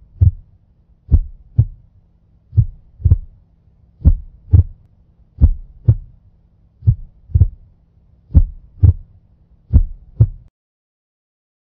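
Slow heartbeat sound effect: paired low lub-dub thumps, roughly one beat every second and a half, over a faint low hum. About eight beats, then it stops shortly before the end.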